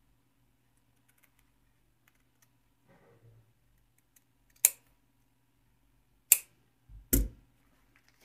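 Tailoring scissors cutting stiff buckram: a soft rustle of the material about three seconds in, then three sharp clicks a second or two apart. The last click is heavier, with a dull knock.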